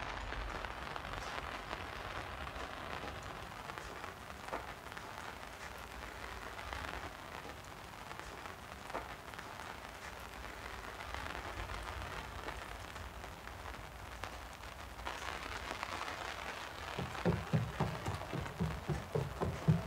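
A steady hiss of rain. About three seconds before the end, a quick run of low, heavy thuds starts, running footsteps.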